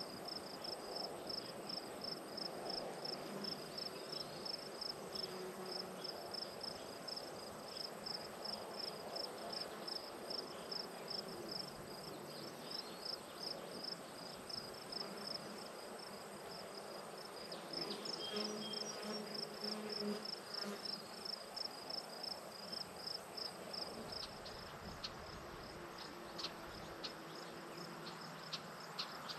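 Insects chirping in an even, rapid train of high-pitched pulses. About two-thirds of the way in, the low buzz of a flying insect passes.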